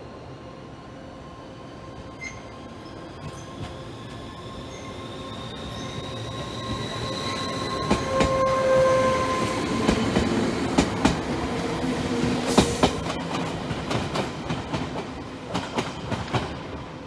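KuMoYa 443 series electric inspection train passing close: the sound builds as it approaches, then its wheels click rapidly over the rail joints as the cars go by, with high ringing tones over the rumble, easing off as it runs away.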